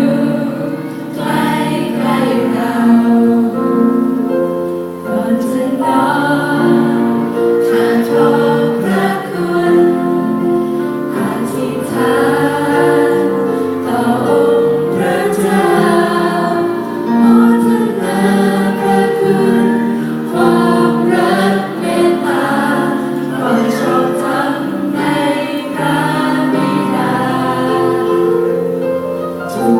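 Youth choir singing in harmony, several voice parts holding and moving between sustained notes.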